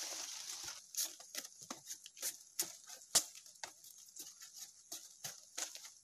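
Machete chopping at the edge of a woven palm-frond panel: irregular sharp strikes, two or three a second, with rustling of the leaflets.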